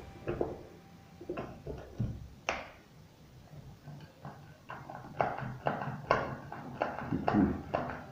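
Irregular clicks and light knocks of hard plastic parts being handled, coming more often in the second half.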